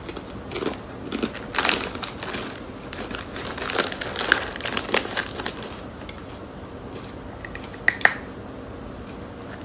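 A foil snack bag crinkling as a hand reaches into it, along with the crunching of dry, toasted tomato-and-herb rusks being chewed, in irregular crackles that are loudest about a second and a half in and near the end.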